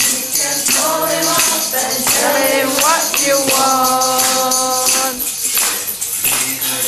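A group singing a devotional song, with jingling hand percussion keeping the rhythm; the voices hold one long note about halfway through.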